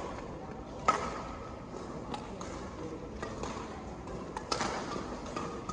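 Badminton rackets striking a shuttlecock during a rally, a series of sharp cracks. The loudest comes about a second in and another strong one about four and a half seconds in, with fainter hits between.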